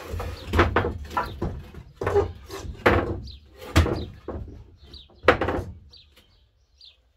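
Long-handled garden tools knocking and clattering against the wooden shelving in a van's cargo space as they are stowed: a string of knocks and thuds, then quieter after about six seconds. Faint bird chirps are heard now and then.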